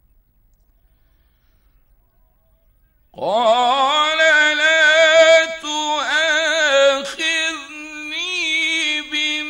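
Near silence, then about three seconds in a male Quran reciter's voice starts up in long held notes with a wavering, ornamented melody: tajweed-style chanted recitation from a 1950s radio recording.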